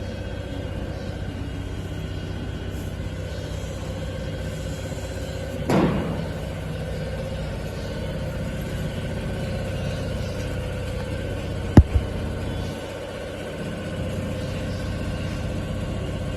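Woodworking planer-sander running with a steady machine hum. It swells briefly about six seconds in, and two sharp knocks come close together about twelve seconds in.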